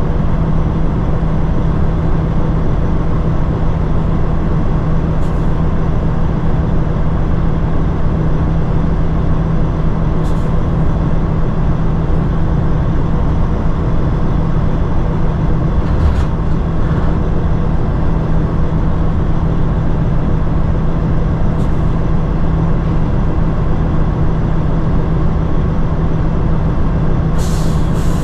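Road-train prime mover's diesel engine idling steadily, with a short faint hiss about every five seconds and a longer hiss starting near the end.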